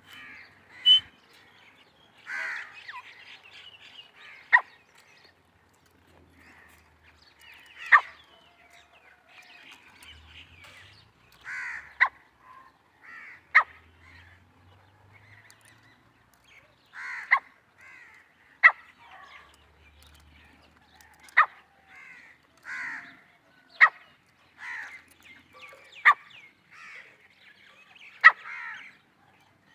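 Grey francolin calling: loud, sharp notes repeated every two to three seconds, with softer harsh calls between them.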